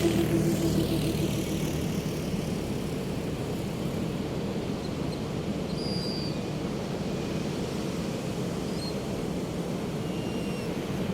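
Pacific surf breaking and washing on the beach in a steady hiss. A low engine drone fades out during the first second or so, and a few faint, short high calls come through later.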